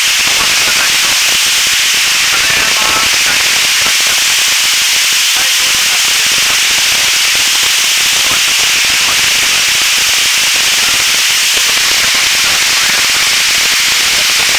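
Mountain-stream waterfall pouring: a loud, steady rush of falling water.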